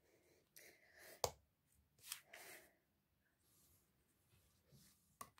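Near silence with a few faint rustles of hands handling cardstock pieces and one sharp click about a second in.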